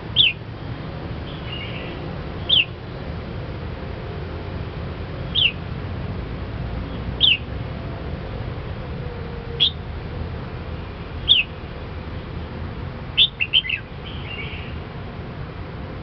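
Red-whiskered bulbul calling: short, sharp falling notes about every two seconds, with a quick run of three near the end, over steady low background noise.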